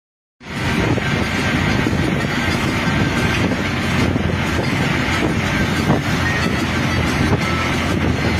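Road vehicle running at speed: a steady, dense rumble that starts suddenly about half a second in.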